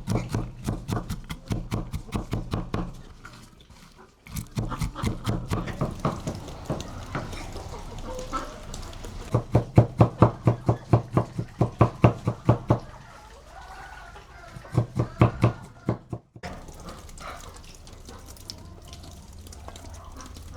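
Rapid, evenly spaced knocks, about five a second, in runs broken off abruptly twice. The runs are loudest in the middle, and only a quieter steady background is left near the end.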